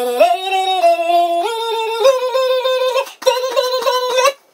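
A voice sings a few held notes that step upward in pitch, then stays on one higher, wavering note, broken by short gaps near the end.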